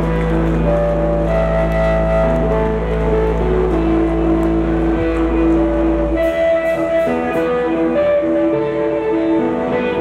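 Live instrumental rock band: electric guitar playing slow melodic lines over electric bass. A deep held bass note drops out about six seconds in.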